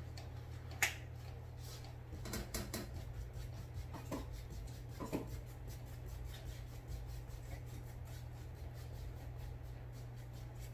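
Foam sponge brush dabbing and rubbing acrylic paint onto a canvas, a quick run of soft taps and scrapes with a sharper click about a second in, over a steady low hum.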